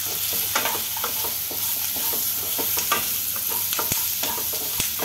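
Wooden spatula stirring and scraping chopped onion, garlic and seeds around a kadai in a series of irregular clicks and scrapes, over a steady sizzle of the oil frying them on a low flame.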